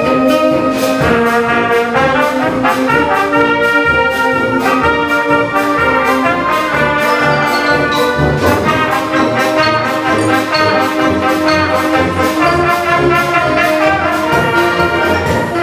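Wind band of brass and woodwinds playing a Broadway classic: full held chords over a steady beat.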